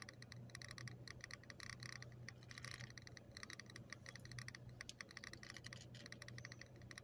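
Fast, faint clicking, many clicks a second, over a steady low hum.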